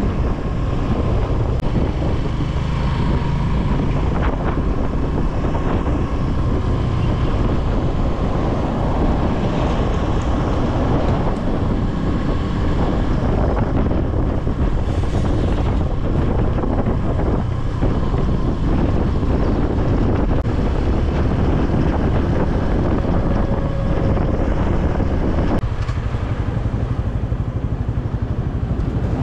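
Wind rushing over the microphone of a motorcycle moving at speed, with engine and road noise as a steady rumble beneath.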